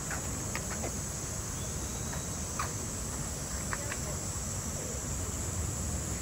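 Cicadas buzzing steadily in a high, even drone over a low background rumble, with a few faint short chirps.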